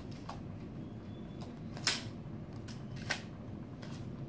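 Plastic claw gloves clicking and clacking as they are handled, a few short sharp clicks with two louder clacks about two and three seconds in, over a steady low room hum.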